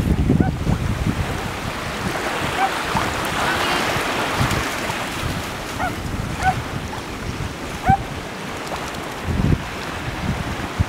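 Small waves washing and lapping at the shoreline, with wind buffeting the microphone; a few short, high chirps come through now and then.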